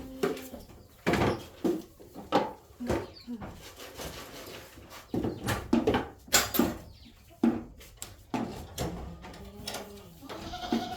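Barn activity: irregular knocks and clattering bumps, with a short animal call about nine seconds in.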